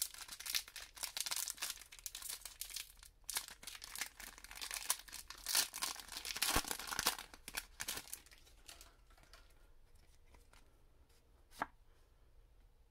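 Foil Pokémon Celebrations booster pack being torn open and crinkled for about eight seconds, then it goes quiet apart from a single click near the end.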